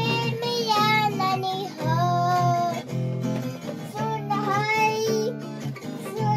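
A young child singing a song in short phrases, over a guitar-like instrumental accompaniment.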